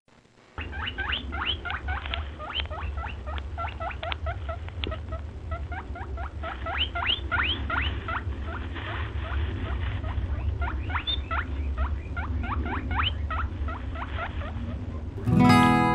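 Rapid series of short, high-pitched chirps from a small animal, each sweeping quickly upward, several a second and in clusters, over a low steady hum.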